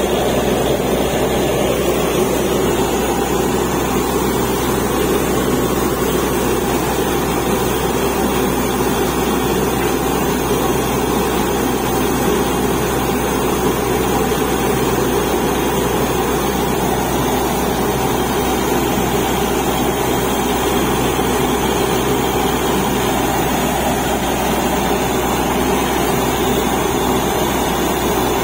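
Truck-mounted borewell drilling rig with its air compressor running steadily: a loud, even diesel drone with no change in pitch or level.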